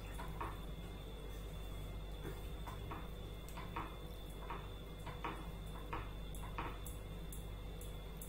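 A wooden spatula stirring thin curry gravy in a nonstick pan, giving a soft scrape and slosh roughly every three-quarters of a second. A steady low hum runs underneath.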